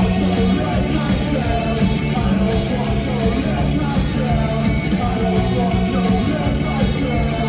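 Live punk-rock band playing loud, with electric guitars and sung vocals, recorded from within the crowd.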